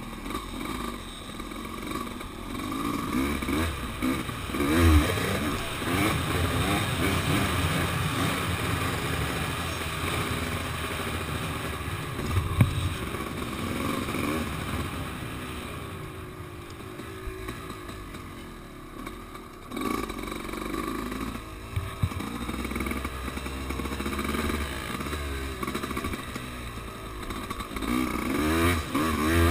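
Dirt bike engine revving up and dropping back again and again as it is ridden around a dirt track, with wind noise and a few sharp knocks from bumps.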